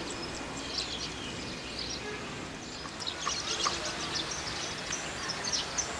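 Birds chirping in short, high calls, more often after about three seconds, over steady outdoor background noise.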